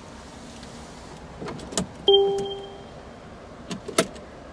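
A single electronic chime from the Mercedes-Benz S-Class dashboard as the ignition is switched on: one clear tone that sounds suddenly about two seconds in and fades away within a second, with a few sharp clicks of hands on the controls before and after it.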